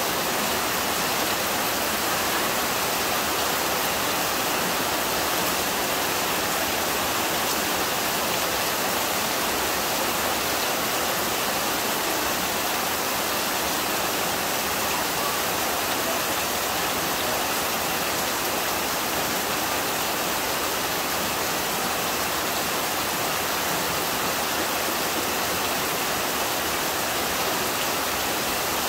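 Heavy monsoon rain pouring steadily, with water streaming off the roof edge and splashing onto wet ground.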